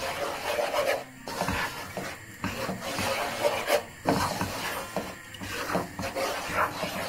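Dry flour being stirred and scraped around a nonstick frying pan while it is dry-roasted, a gritty rubbing in repeated strokes about a second and a half apart.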